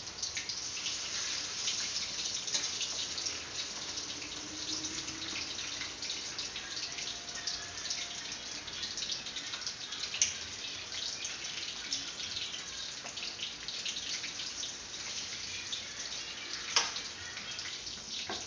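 Chicken pieces frying in hot oil in a wok: a steady sizzle full of small crackles, with two sharper clicks, one about ten seconds in and one near the end.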